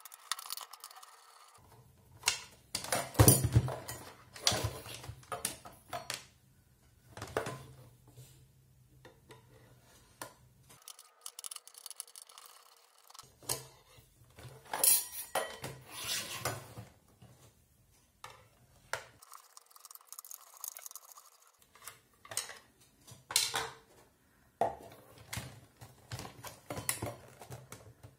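A long screwdriver unscrewing screws from the plastic housing of a rechargeable halogen spotlight: irregular clicks, scrapes and small metal clinks, with the housing shifted and handled between them.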